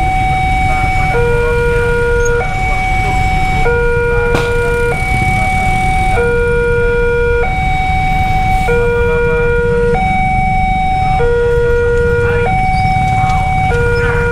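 Railway level-crossing warning alarm sounding a two-tone hi-lo signal, switching between a higher and a lower tone about every 1.2 seconds, with a low rumble underneath. It signals that the crossing is closed for an approaching train.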